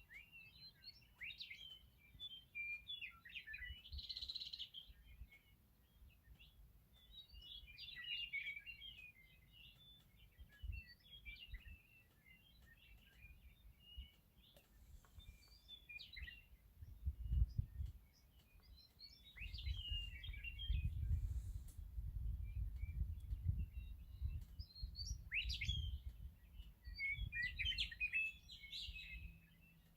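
Western meadowlarks singing: repeated bursts of quick, warbled high phrases, again and again. In the second half a low rumble comes and goes under the song and is the loudest sound.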